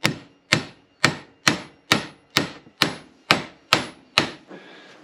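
Steady hammer blows driving a new wheel-bearing race down into a front wheel hub held in a vise, ten sharp ringing strikes about two a second, stopping a little after four seconds in as the race seats.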